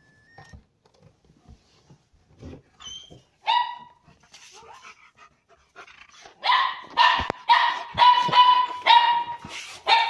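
An excited dog yelping and barking in greeting as its owner comes home. There is one high yelp about three and a half seconds in, then a quick run of high yips and barks from about six and a half seconds on.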